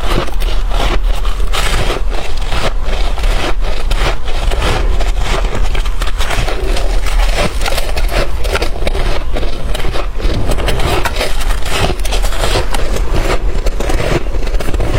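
Close-miked chewing of freezer frost and shaved ice, a dense, continuous run of crackly crunches.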